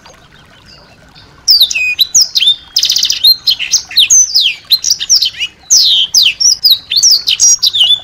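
Small songbird singing a fast, dense song of sharp down-slurred whistles with a buzzy rattle among them, starting about a second and a half in after a near-quiet opening.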